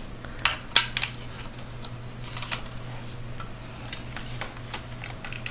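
Scattered light clicks and taps of a pin vise and small metal drill bits being handled and set down, with a plastic drill-bit case; a sharper click near the end. A steady low hum underneath.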